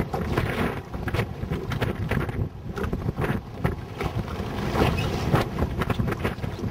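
Wind buffeting the microphone in uneven gusts, over the rush and slap of choppy water.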